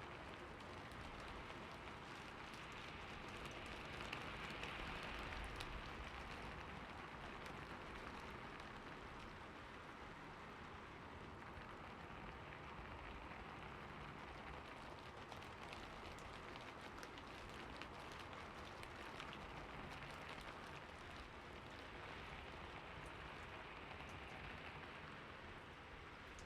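Steady rain falling, a dense patter of drops with a slight swell a few seconds in.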